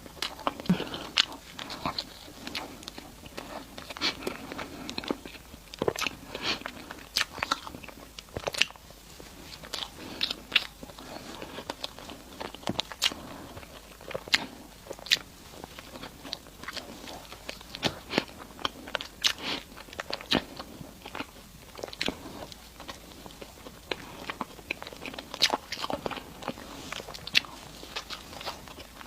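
Close-miked eating: a person biting and chewing sweets, with many irregular crisp clicks and crackles of mouth and food sounds.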